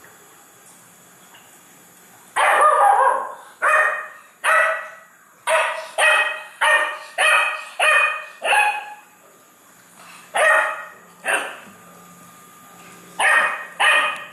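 Beagle puppy barking, about a dozen short barks in quick runs starting a couple of seconds in, with a gap of a few seconds before the last few. She is demanding more food from the adult dogs after finishing her own meal.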